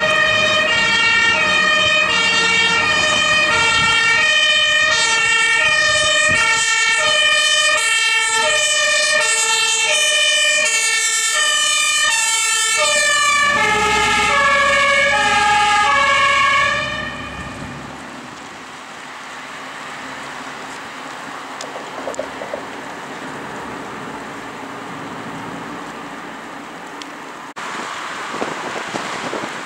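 Fire engine's two-tone siren (German Martinshorn) passing by, alternating between a high and a low note. Its notes drop in pitch about 13 seconds in as the truck goes past, and it fades out by about 17 seconds, leaving engine, road and wind noise.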